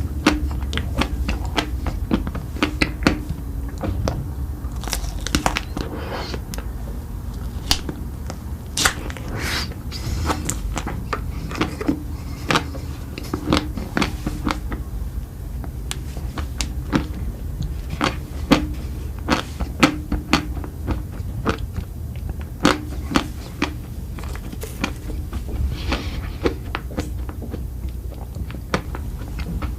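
A person chewing and biting food, with many irregular crackly, crunchy clicks of the mouth and food.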